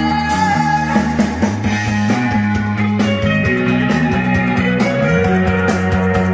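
Rock music with guitar played from a vinyl record through the restored AMI-Rowe R-2620A jukebox tube amplifier, a push-pull amp with 7868 output tubes, and heard over its loudspeaker.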